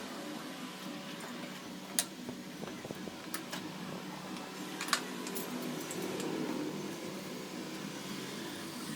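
A steady mechanical hum, with sharp clicks about two seconds in and about five seconds in, and a few fainter ones.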